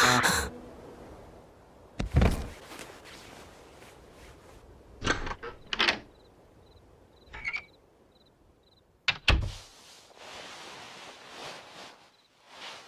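The music stops right at the start, then a handful of separate thuds and knocks, like door or cabinet impacts, come several seconds apart. A faint row of short high beeps runs between them.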